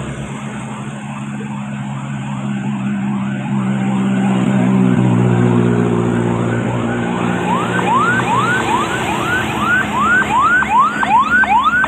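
A siren yelping in quick rising sweeps, about three a second, growing much louder in the second half. Under it a large engine runs with a deep steady note that swells midway.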